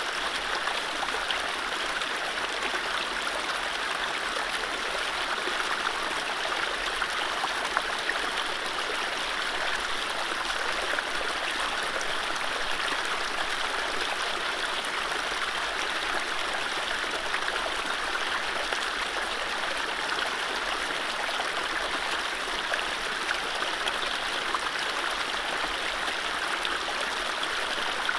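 Mountain stream running over low rapids: a steady rush of water with fine gurgling and splashing throughout.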